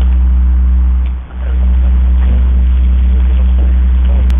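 A loud, steady low hum that drops out for a moment just over a second in, with faint distant voices beneath it.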